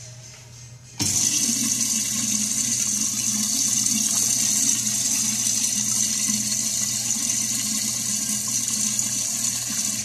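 American Standard Washbrook urinal, a 1.0 gallon-per-flush model, flushing: a rush of water starts suddenly about a second in, runs steadily for about nine seconds, then stops.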